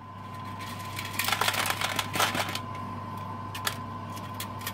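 Dried chicken of the woods mushroom slices clicking and rattling as a hand brushes them off a plastic dehydrator tray into a plastic tub, with a busy flurry of clicks between about one and two and a half seconds in and a few single clicks later. A steady low hum runs underneath.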